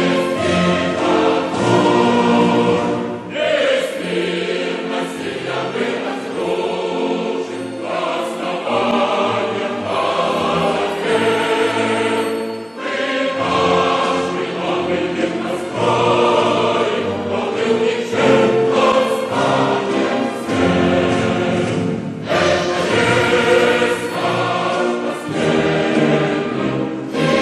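Choral music: a choir singing full, sustained chords in long phrases, with a short break between phrases about every ten seconds.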